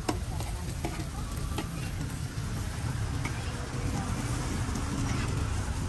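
Short noodles and eggs sizzling on a large flat metal griddle, with a few sharp clicks of a metal spatula in the first two seconds, over a low steady rumble of road traffic.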